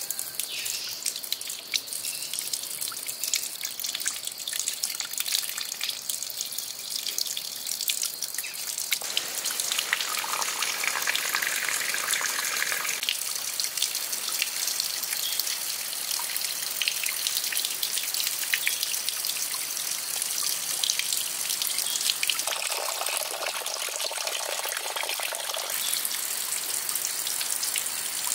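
Water spouting from the tentacle tips of a clay octopus fountain and splashing into a small pond: a steady trickle with a dense patter of drops. The tone shifts twice, with fuller stretches about ten seconds in and again a few seconds before the end.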